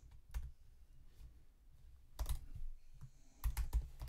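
Typing on a computer keyboard: a single keystroke near the start, a couple more a little after two seconds, then a quick run of keystrokes near the end.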